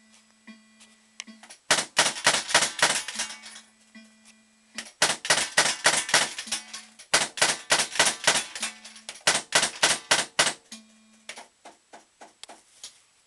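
A Pound Sterling fruit machine clattering in three runs of rapid, loud clicks, several a second, with a low steady hum in the gaps between runs and a few scattered clicks near the start and end.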